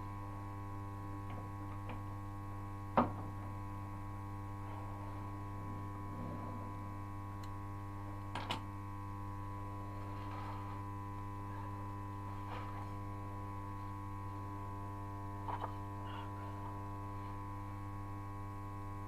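Steady electric hum made of a low buzz with a row of fixed higher tones. A sharp click comes about three seconds in and is the loudest sound, with a few fainter clicks and knocks later.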